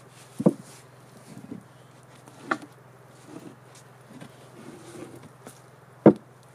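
A few dull knocks of wood on wood or on a hard surface, about half a second, two and a half and six seconds in, the last the loudest, with softer handling rustles between. A low steady hum runs underneath.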